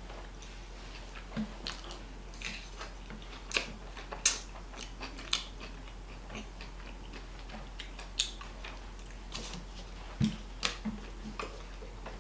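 Close-miked chewing and mouth sounds of someone eating fast food (burger and fries), with scattered wet clicks and crackles a few times a second.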